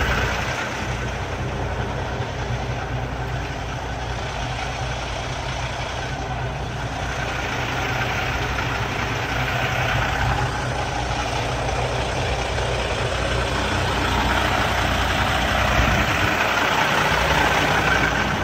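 Semi truck's diesel engine running steadily at low revs, getting a little louder toward the end.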